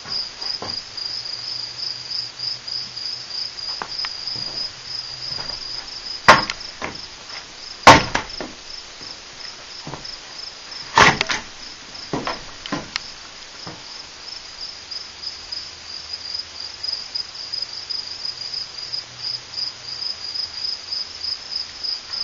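Cricket chirping steadily in a quick, even run of high chirps, with a few sharp knocks about six, eight and eleven seconds in, the one near eight seconds the loudest.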